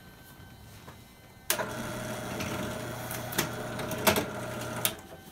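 Benchtop drill press starting about a second and a half in and running with a steady tone while drilling the centre hole through square polycarbonate record blanks, with a couple of sharp clicks; it stops abruptly near the end.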